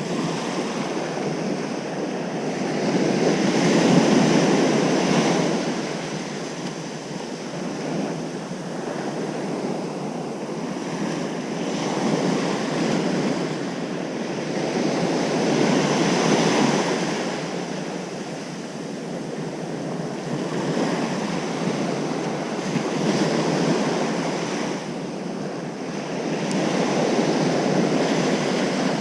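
Ocean surf breaking on a beach, the wash swelling and fading in slow surges every few seconds. The loudest surge comes about four seconds in.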